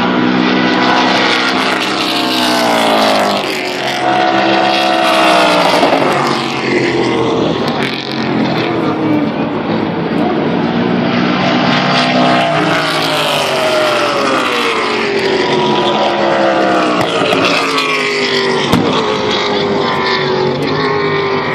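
Trans-Am race cars running at speed past on the straight, one after another. Each engine note falls in pitch as the car goes by, and several cars pass in succession.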